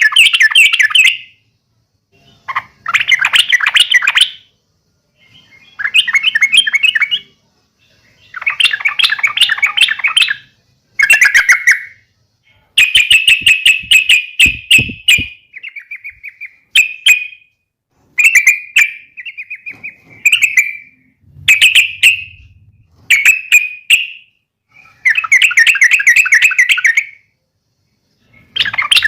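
Yellow-vented bulbul (trucukan) calling in short, bubbly, chattering phrases of a second or two, repeated about a dozen times with brief pauses between them. This is the agitated, fighting-type song that bird keepers use to provoke a caged trucuk into answering. A few sharp clicks sound about halfway through.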